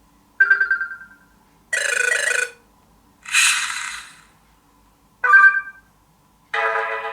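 A BQ Aquaris 4 smartphone's speaker playing its stock Android notification tones one after another: five short tones about a second apart, bell-like chimes that ring out and fade, with two noisier, hissing sounds in between, the last chime the longest.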